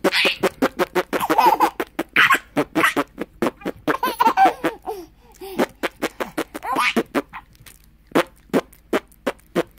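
Baby laughing in a rapid run of short bursts, the laughs coming farther apart in the second half.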